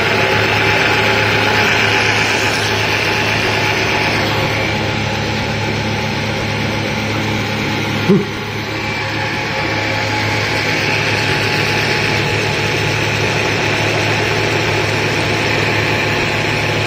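Automatic CNC wood lathe running its cycle: a steady machine hum with the spinning polishing wheel sanding the turned wood, its hiss growing louder and softer. A short sharp noise about eight seconds in.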